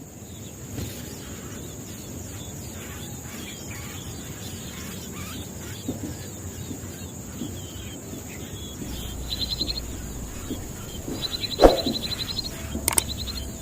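A bird chirping in short, rapid trills, twice in the later part, over steady outdoor background noise with a constant high-pitched whine. There is one sharp click among the trills.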